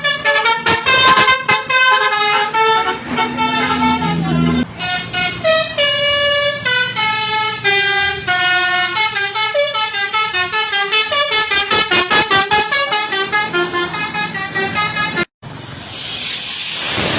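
A bus's Basuri telolet musical horn plays a fast melody of short, quickly changing notes. It cuts off suddenly about fifteen seconds in, and a rush of noise swells up after it.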